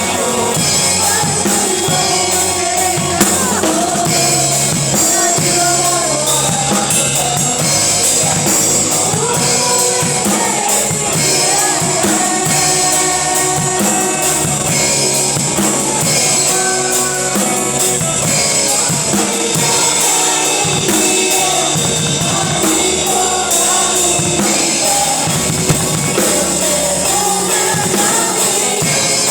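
Gospel worship music played by a band with a drum kit keeping a steady beat and voices singing over it.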